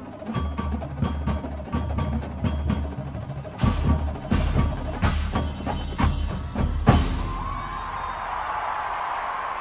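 Drum and bugle corps percussion section playing a driving rhythmic passage: drums and mallet percussion with sharp wood-block-like clicks over a low sustained note. Heavier bass drum hits join about three and a half seconds in, and the passage closes on its loudest hit about seven seconds in, after which a steady crowd roar of applause remains.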